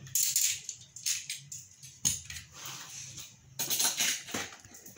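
A cardboard box being handled and its flap pulled open: irregular rustling and scraping of cardboard, with louder bursts just after the start and again about four seconds in.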